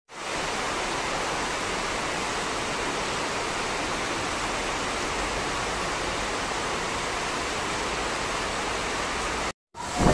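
Heavy rain pouring steadily, a dense, even hiss. Near the end the sound drops out for a moment and returns louder and more uneven.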